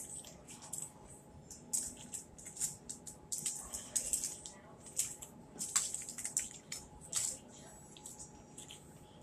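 Close-up eating sounds: fried fish fillets torn apart by hand and chewed, an irregular run of short crackles and wet mouth clicks.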